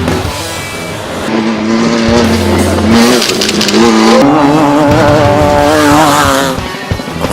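Racing engine under hard acceleration, its pitch climbing and then dropping sharply at each upshift, twice in a row.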